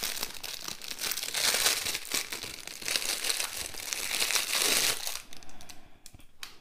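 Thin clear plastic bag crinkling and rustling as a pen is pulled out of it, dying down about five seconds in to a few faint handling clicks.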